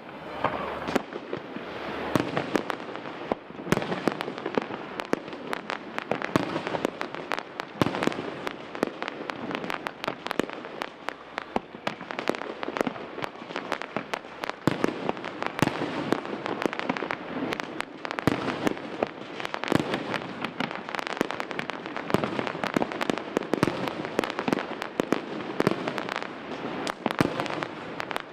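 Aerial fireworks display: a dense, continuous barrage of shell bursts, bangs and crackle, building up about two seconds in and running on without a pause.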